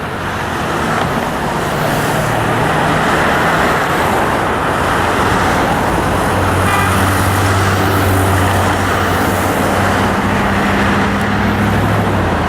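Busy freeway traffic passing steadily, a continuous rush of tyres and engines. A low engine hum from a heavy vehicle grows stronger about halfway through.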